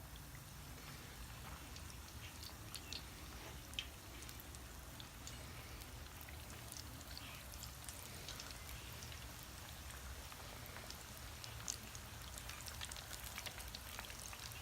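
Breaded chicken tenders deep-frying in oil at about 350°F: a faint, steady sizzle with scattered crackles and pops, over a low steady rumble.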